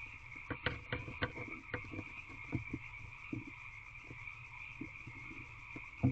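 Barn owl shuffling and scraping nest debris inside a wooden nest box: a quick cluster of sharp knocks and scratches in the first two seconds, then scattered soft thumps. A steady high-pitched drone runs underneath.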